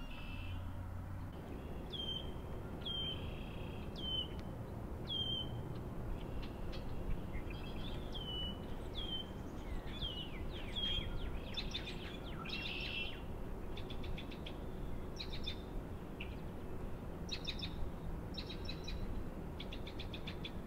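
Songbirds singing and calling: a series of short, down-slurred whistled notes about once a second, then a busier mix of varied chirps and quick trilled notes from about halfway through. A steady low rumble of wind runs underneath.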